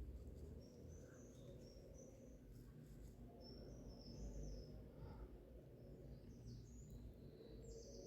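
Near silence: a low room rumble with faint, short high chirps scattered through, a little denser near the end.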